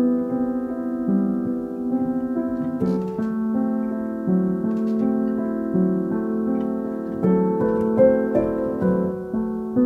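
Slow, calm instrumental piano music with held notes and soft chords that change about once a second.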